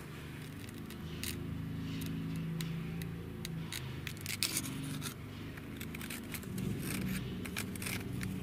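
Dry, brittle leaves crackling and rustling as they are handled, in clusters of sharp crackles, loudest about four and seven seconds in. Under it runs a steady low hum.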